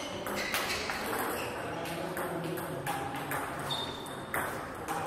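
A celluloid/plastic table tennis ball clicking sharply off rubber bats and the table as a rally ends, then a few scattered bounces. The clicks come unevenly: a couple close together near the start and single ones about three and four and a half seconds in.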